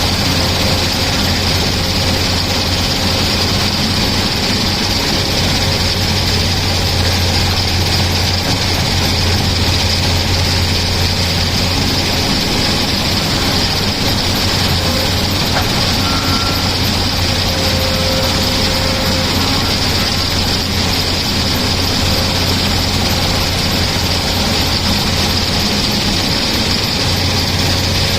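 Tata Hitachi excavator's diesel engine running steadily, a constant low drone that does not change in pitch or loudness.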